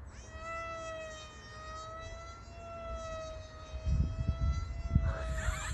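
Electric motor and propeller of a small FPV flying wing whining in flight at a steady pitch that wavers only slightly, with wind rumbling on the microphone from about four seconds in.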